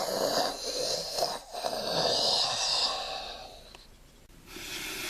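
A person making two long, noisy breathy blows, the second longer and trailing off.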